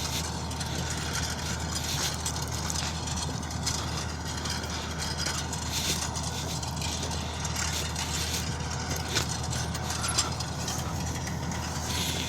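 New Holland TD4.100F tractor's diesel engine running steadily under way, with frequent short metallic rattles and clicks from the working tractor and cultivator.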